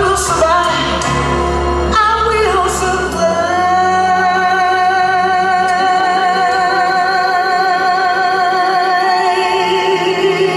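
A singer sings a song over musical accompaniment. About three seconds in the bass drops away, and the voice holds one long note with vibrato.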